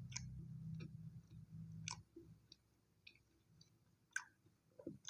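Close-up chewing of chocolate toast, with scattered small wet mouth clicks and smacks. A low steady hum runs under the first two seconds and then stops.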